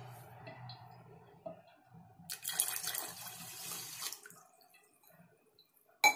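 Water poured from a steel cup into a pot of sugar, splashing for about two seconds a little before the middle, with a single sharp clink near the end.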